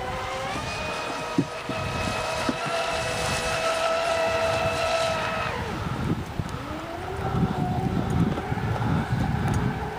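Brushless electric motor of a 41-inch RC racing boat (SSS 3674, 2075 kV, on 6S) whining at speed. The pitch climbs briefly, holds steady for about five seconds, then falls away as the throttle comes off, and rises again as the boat speeds back up. A low rumble runs under it in the second half.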